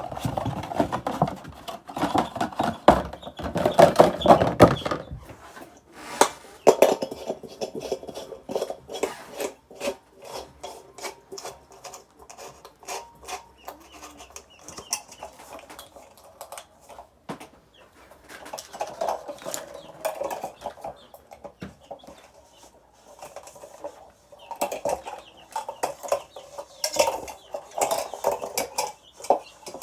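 Chickens calling on and off, with many short clicks and clinks from handling gear in between.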